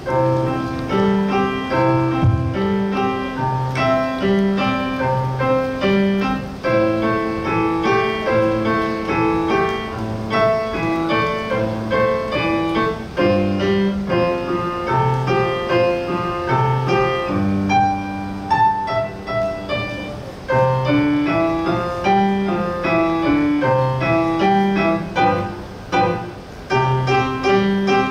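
Solo piano: a melody over a steady, repeating accompaniment in the bass, broken by two short pauses in the second half.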